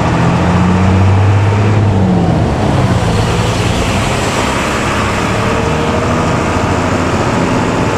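Intercity bus's diesel engine running with its snoring ('ngorok') exhaust, over steady road noise. The engine note drops about two seconds in, then holds steady.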